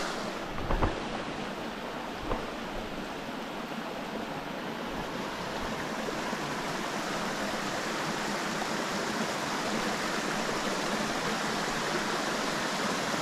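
Small mountain creek's water running over rocks in a steady rush, with a couple of brief knocks in the first few seconds.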